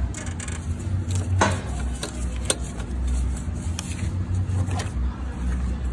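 Hands-on work around a riding mower's belt and pulleys: a low, uneven rumble with a few sharp clicks and knocks, roughly a second apart.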